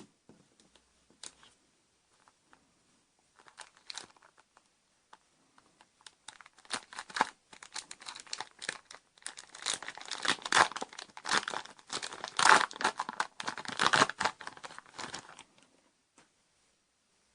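Plastic foil wrapper of a Yu-Gi-Oh booster pack being torn open and crinkled: a few light rustles at first, then about nine seconds of dense tearing and crackling that stops near the end.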